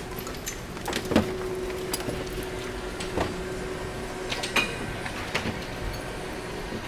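Garbage-sorting conveyor line running with a steady machinery hum and a held tone, with sharp knocks and clatter at irregular intervals, about one a second.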